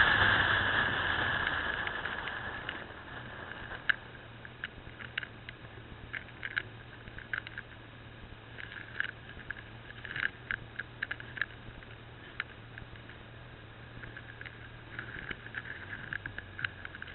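Motorcycle riding noise, mostly wind and engine, fading over the first three seconds as the bike slows to a stop, then a low steady engine idle with scattered light clicks.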